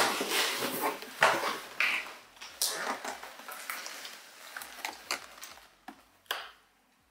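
Cardboard shipping box being unpacked by hand: flaps and packaging rustling and knocking as a boxed item is pulled out, thinning out with one sharp knock near the end.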